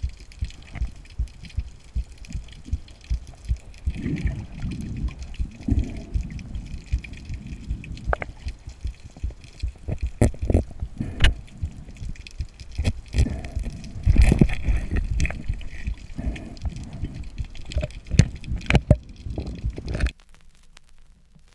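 Muffled underwater water noise against an action-camera housing, with a regular low pulsing about twice a second. From about eight seconds in it turns louder and rougher, with sharp clicks and knocks, then cuts off suddenly near the end.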